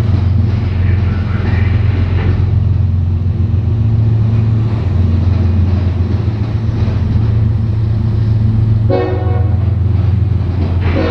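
CSX diesel-hauled freight train passing close by: the locomotive goes by, then freight cars roll past with a steady low rumble. A short horn toot about nine seconds in.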